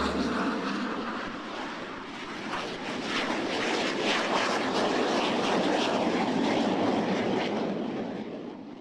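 A steady rushing noise that dips early, swells again midway and fades out at the end.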